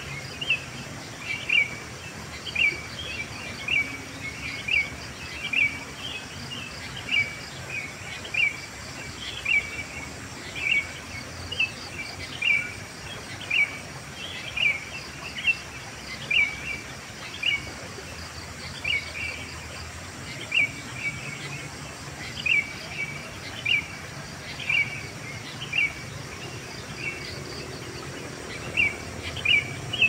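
Sooty-headed bulbuls (kutilang) calling in a lively morning chorus: short, sharp chirping notes repeating about one to two times a second. A faint, steady high insect trill runs underneath.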